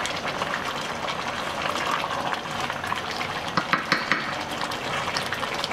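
Wooden spatula stirring jackfruit simmering in coconut-milk curry in a metal pot, with the liquid bubbling throughout and irregular small clicks and scrapes of the spatula against the pot.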